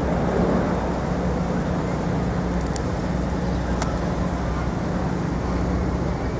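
City street traffic noise: a steady rumble of vehicles with a low engine hum underneath, and two faint clicks near the middle.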